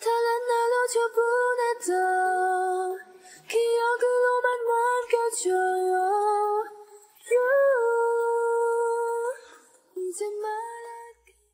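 Background music: a solo female voice singing a slow melody in long held notes, in several phrases separated by short breaks.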